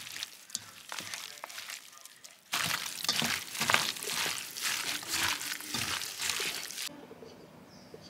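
Liquid pouring into a cooking pot for about four seconds, starting abruptly a couple of seconds in and cutting off sharply, with a few light clicks before it.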